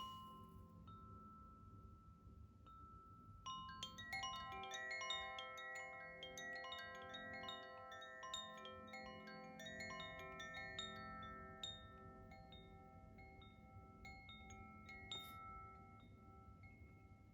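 Koshi chime in the Terra (earth) tuning ringing: a few slow, long-ringing notes, then about four seconds in a quick cluster of overlapping bell-like tones that thins out into sparse ringing notes near the end.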